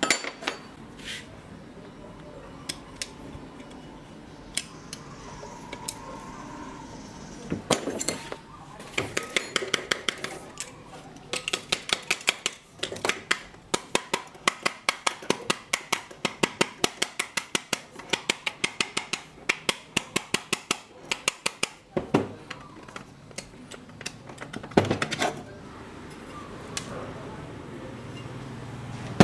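Metal tools and parts clinking and clicking in hand work on an old circular saw. Through the middle comes a long run of quick, even clicks, about four a second, with single knocks near the start and about three quarters of the way in.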